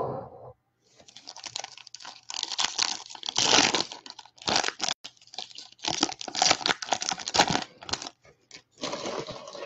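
Foil wrapper of a Topps Chrome trading-card pack being torn open and crinkled, in a series of irregular rustling bursts with short pauses between them.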